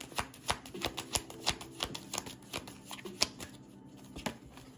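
Deck of oracle cards being shuffled by hand: a quick run of sharp card snaps and slaps that thins out about three seconds in.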